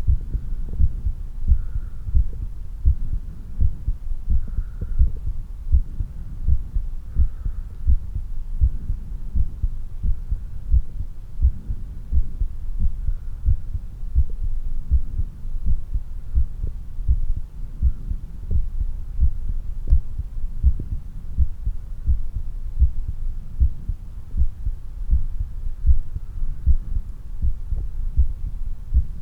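Human heartbeat heard through the chest after exercise: a steady, regular run of low thumps.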